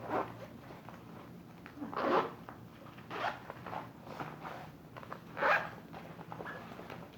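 Handling of unboxed items: five or six short rustling, zip-like scrapes, the loudest about five and a half seconds in.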